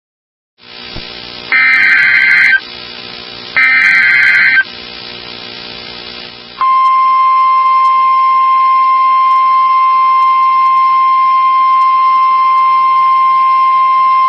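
Emergency Alert System SAME header tones: two loud one-second bursts of warbling digital data. About six and a half seconds in, the steady single-pitch 1050 Hz NOAA Weather Radio warning alarm tone begins. This signals that a new warning is about to be read. Music plays quietly underneath.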